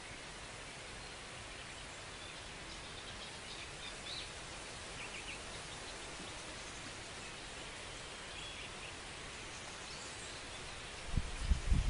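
Steady outdoor background hiss with faint, scattered bird chirps. About eleven seconds in, wind starts buffeting the microphone with loud, irregular low rumbles.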